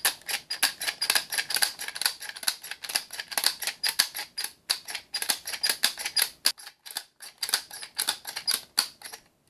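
Rapid clicking of .22 LR rimfire cartridges being pushed one after another from a plastic Lightnin' Grip loader down into an M&P 15-22 magazine, several clicks a second. There is a short pause about two-thirds of the way through, and the clicking stops just before the end.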